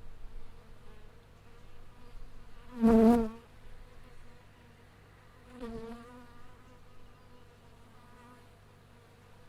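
Honeybees buzzing around their wild colony in a tree hollow, a steady hum of many wings. Single bees fly close past the microphone twice, about three seconds in and again near six seconds, each a brief louder buzz that bends in pitch as it passes.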